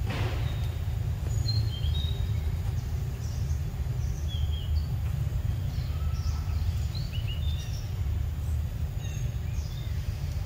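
Steady low outdoor rumble, with small birds chirping in short high calls scattered throughout and a sharp click at the very start.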